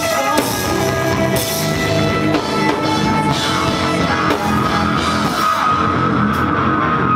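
Heavy metal band playing: distorted electric guitars, bass and drum kit, with screamed vocals. A high note is held from about four seconds in.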